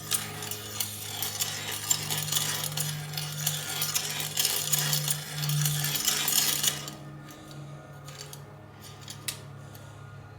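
Metal clinking, ticking and rubbing as a bicycle crank arm and chainring are turned and handled on a square-taper bottom bracket spindle. It is busiest for about the first seven seconds, then thins to a few scattered clicks.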